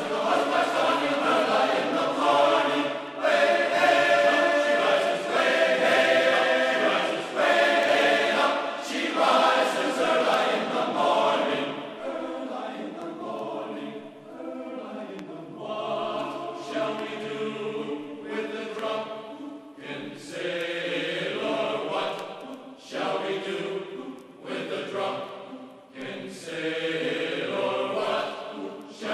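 Background music of a choir chanting in long sung phrases, softer for a few seconds midway.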